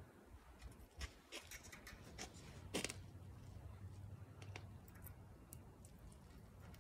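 Faint, scattered clicks and taps of small metal parts being handled while a tractor hydraulic control valve is reassembled, over a low steady hum.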